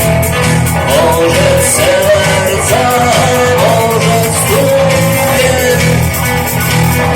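Rock song cover: a sung melody over guitar and a steady bass-and-drum backing.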